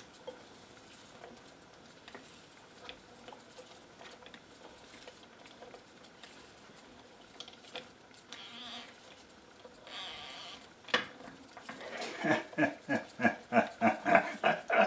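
Spring-driven Magnemite 610 portable reel-to-reel tape recorder: faint handling clicks, a sharp click about eleven seconds in, then a fast, even run of pitched squeaks, about three or four a second, as the running tape sticks to and pulls off the capstan.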